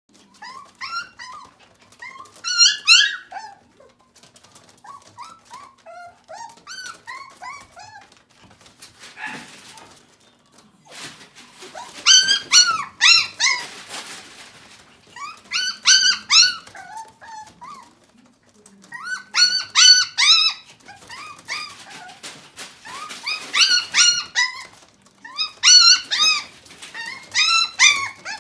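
A puppy whining and yelping in high-pitched runs of short rising-and-falling cries, several a second. The cries come in bouts of one to three seconds with short pauses between, louder in the second half.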